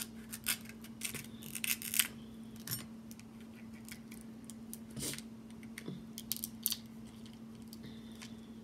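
Snow crab leg shell cracking and crackling as it is broken and peeled apart by hand, heard as scattered sharp clicks and snaps in small clusters, over a faint steady hum.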